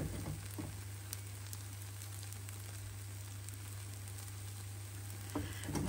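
Yeast blin frying in an oiled frying pan: a steady, soft sizzle with a few faint crackles, over a steady low hum.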